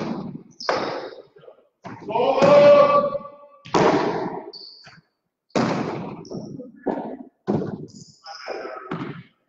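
Jai alai pelota in a rally: a string of sharp, echoing impacts, about eight in all, as the hard ball strikes the fronton's front wall and floor and is caught and hurled from the wicker cesta.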